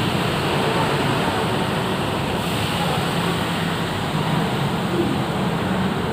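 Steady rumble and hiss of road traffic, with no single vehicle standing out.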